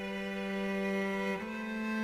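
Slow background music of long, sustained notes, moving to a new note about one and a half seconds in.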